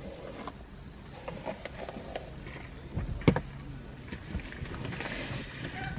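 Low steady hum inside a car's cabin, with small rustling and handling noises and one sharp click about three seconds in.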